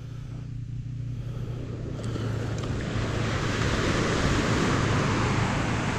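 Ocean surf washing onto the beach with wind noise on the microphone, swelling louder over the first few seconds and then holding steady.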